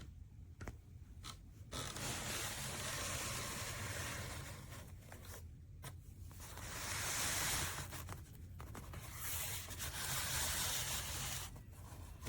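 Rubbing and scraping of a water-damaged cardboard box being handled and turned over, in three stretches with short pauses between them.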